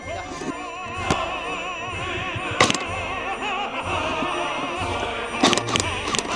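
Classical music with an operatic solo voice holding long notes with a wide vibrato. Three sharp clicks cut through it.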